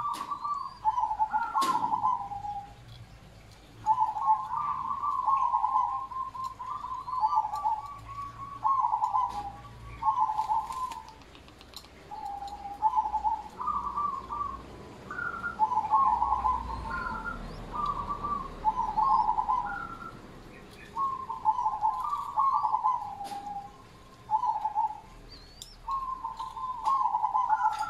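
Zebra dove (merbok) singing: repeated phrases of quick, rolling coo notes, each phrase a second or two long with short pauses between.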